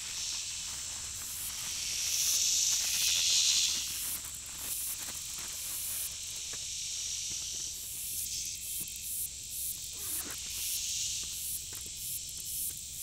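High-pitched buzzing insect chorus, swelling louder about two to four seconds in and again near the end, with light rustling and handling of nylon fabric.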